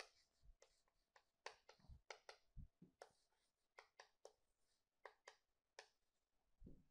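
Chalk on a chalkboard, faint: a scatter of short taps and scratchy strokes as characters are written, with a few soft low thumps.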